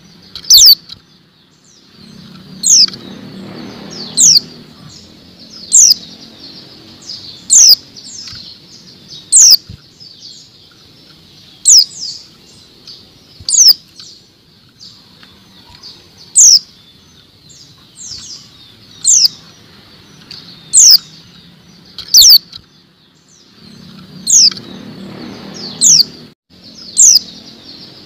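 Female white-eye (pleci) giving short, sharp, high calls that slide down in pitch, one every second or two, about fifteen in all. A low rumble swells and fades twice in the background.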